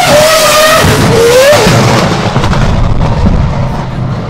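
Race car spinning its tyres at high revs: a wavering squeal that rises sharply in pitch about a second and a half in, then gives way to a lower, rougher rumble.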